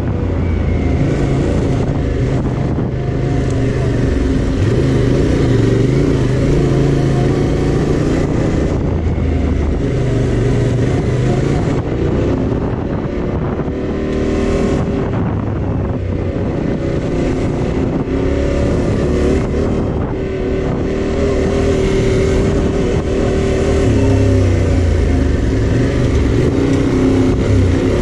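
A 2021 Yamaha Tenere 700's parallel-twin engine running while riding. Its pitch steps up and down as the throttle and gears change, over a rushing noise.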